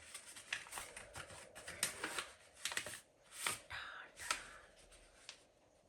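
Packaging being handled and unwrapped by hand: an irregular run of sharp crinkles and rustles that thins out about five seconds in.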